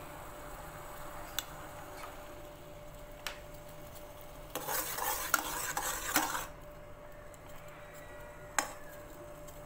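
Black coffee bubbling at the boil in a steel saucepan, with a few single clicks and, midway, about two seconds of louder metal clinking and scraping against the pan.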